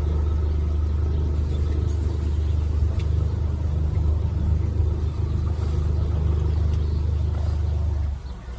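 Canal tour boat's engine running with a loud, steady low drone, which drops away abruptly about eight seconds in as the engine is throttled back.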